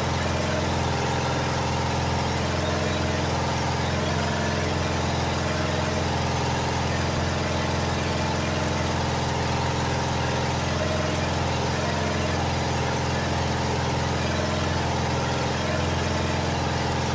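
An engine idling steadily at a constant speed, with an even low hum.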